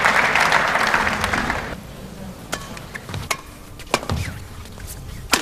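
Crowd applause dying away over the first couple of seconds, then a badminton rally: several sharp racket strikes on the shuttlecock, each under a second apart.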